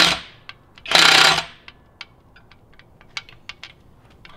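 Small metallic clicks and taps of steel rocker arms being worked by hand on the rocker shaft of a BMW M20 cylinder head, one of them binding on the shaft. A brief loud rushing burst comes about a second in.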